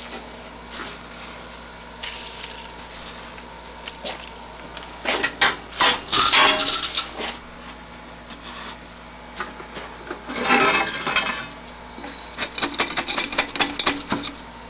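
Metal tool scraping and clinking through coal and ash in a coal forge's firepot, digging it out down to the tuyere. Irregular scrapes and knocks, with two busier bursts and a quick run of small clinks near the end.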